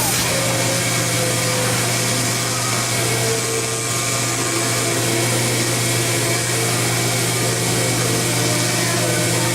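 Gannomat 470 Index 130 Trend CNC bore, glue and dowel machine running: a steady low machine hum with a broad hiss, and short whines that come and go as it works through its cycle.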